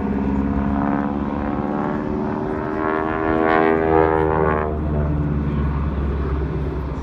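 Propeller engine of an aerobatic biplane droning as the plane dives through a manoeuvre. Its pitch rises and then falls away, loudest about four seconds in.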